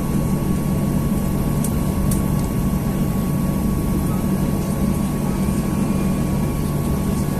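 Steady cabin noise inside a Boeing 737-800 with its CFM56-7B jet engines at low taxi thrust: a deep even hum with a thin high whine held on one note.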